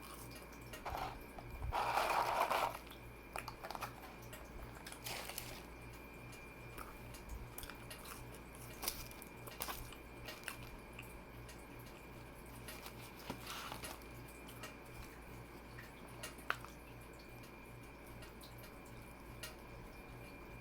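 Mouth sounds of a person eating: quiet chewing with scattered small clicks, and one louder noisy sound about two seconds in that lasts about a second.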